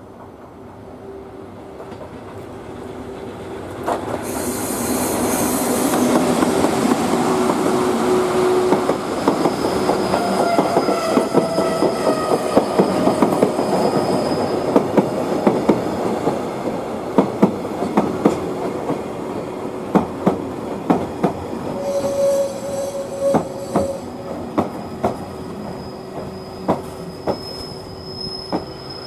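Freight train hauled by an EF81 electric locomotive passing close by: the noise builds and jumps about four seconds in as the locomotive goes past, then the wagons roll by with wheel squeal and a long run of clacks over the rail joints.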